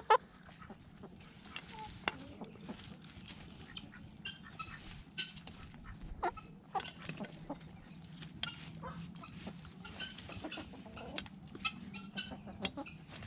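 Poultry flock feeding: soft scattered clucks and short calls among many light, quick taps of pecking at food.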